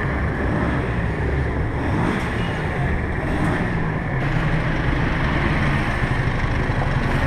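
Street traffic: a motor vehicle engine running close by, a steady low rumble with an engine hum.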